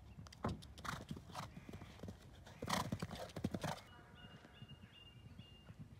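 A horse's hoofbeats on grass turf as it canters over a cross-country course, a run of separate thuds that is loudest about three seconds in and drops away near four seconds.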